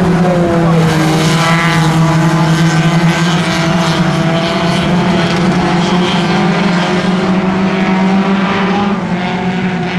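Several race car engines droning as sedans lap a dirt speedway track, the engine notes drifting up and down in pitch as the cars pass.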